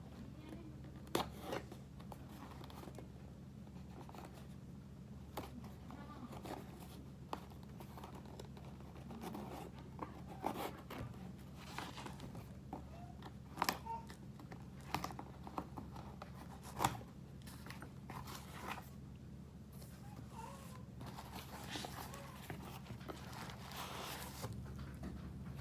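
Plastic courier parcel wrapping being handled and torn open: intermittent crinkling, scraping and tearing with a few sharp clicks, over a steady low electrical hum.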